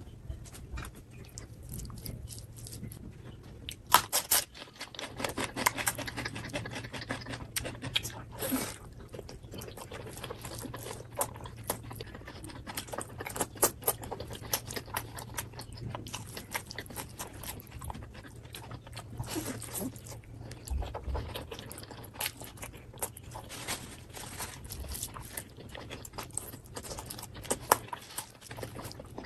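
Close-miked chewing and crunching of food, with many short, irregular mouth clicks and smacks throughout.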